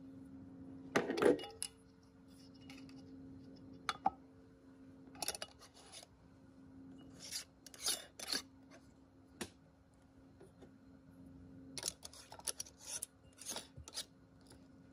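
Metal canning lids clinking onto glass jam jars and screw bands being twisted onto the jar threads: a scattered series of short clinks and scraping rasps, busiest around the middle and near the end, over a steady low hum.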